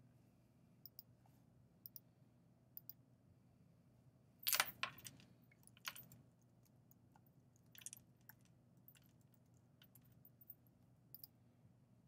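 Faint, scattered clicks of a computer mouse and keyboard keys, with a louder cluster about four and a half seconds in, over a low steady hum.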